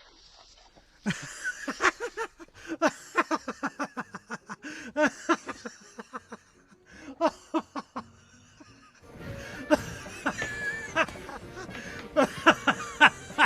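Laughing in quick, repeated bursts over music, starting about a second in; the sound changes to a fuller mix about nine seconds in.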